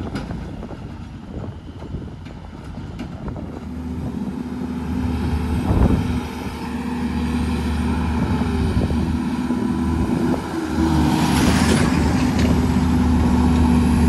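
Heavy truck's diesel engine running, growing louder over several seconds, with a brief hiss about eleven seconds in.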